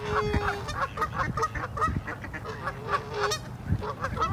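A flock of mallards quacking: a dense, rapid chatter of short overlapping calls, with a couple of longer, lower calls in among them.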